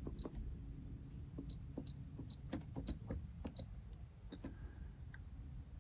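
Plastic keys on a Seiko UC-2200 keyboard being pressed one after another. About six of the presses are answered by a short high electronic beep.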